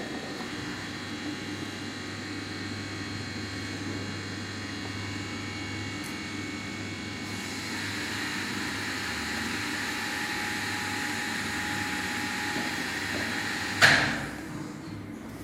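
Elevator machinery running with a steady mechanical hum and whine, growing a little louder partway through. Near the end comes one loud, sharp clunk, after which the running sound drops away.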